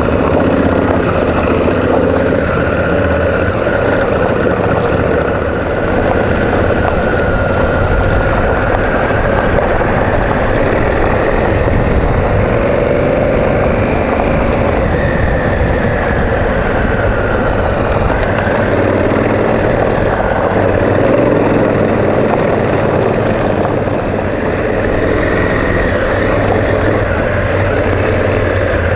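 Honda Africa Twin CRF1000's parallel-twin engine running under way off-road, its note rising and falling with the throttle, heard from a camera mounted on the bike.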